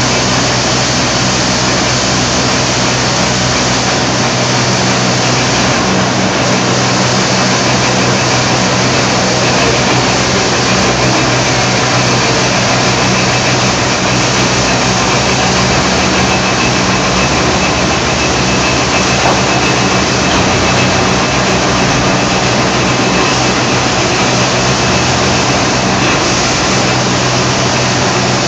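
Heecon transporter running steadily while pulling out rockwool slabs: a constant, loud machine drone with a steady low hum under it.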